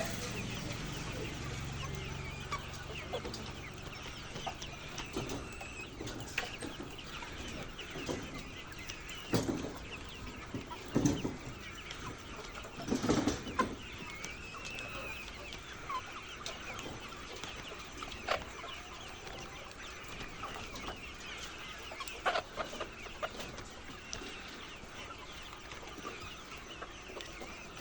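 A flock of laying hens clucking and calling all at once, a steady overlapping chatter with a few louder squawks standing out now and then.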